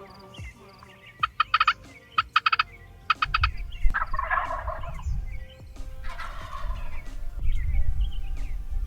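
Wild turkey gobbling several times in quick succession, with a low rumble underneath from about three seconds in.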